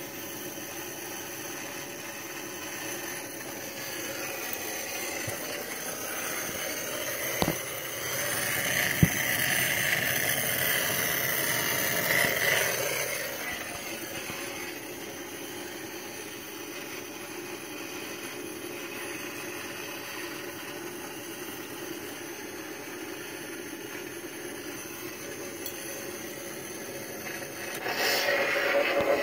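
Toy Ghostbusters proton pack's electronic sound effects playing from its small speaker: a steady hum, with two sharp clicks and a louder swell in the middle.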